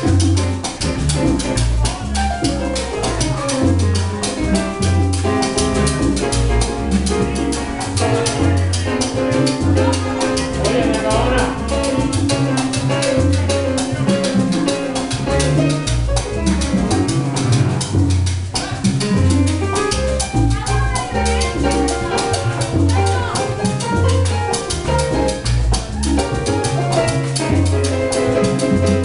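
Live salsa band playing: drums and Latin hand percussion over a repeating bass line, with the full band sounding together.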